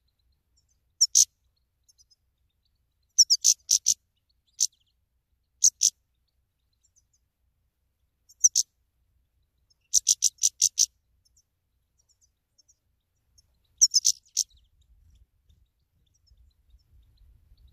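Caged goldfinch calling: short clusters of sharp, high chirps, from a single note to runs of four or five quick notes, separated by pauses of one to three seconds.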